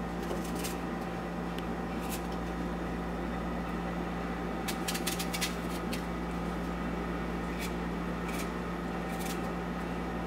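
Knife slicing pieces off a hand-held apple into a blender cup: short, crisp cutting clicks, a quick cluster about halfway through and single ones scattered elsewhere. A steady hum with fixed tones runs underneath.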